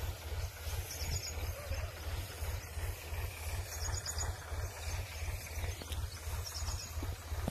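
Tractor engine running steadily with a low, even throb, driving a pump for a pesticide sprayer. A bird gives a quick run of high chirps three times.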